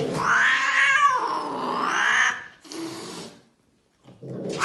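A cat yowling: one long, wavering call of about two seconds, followed by a short quieter sound and a moment of silence.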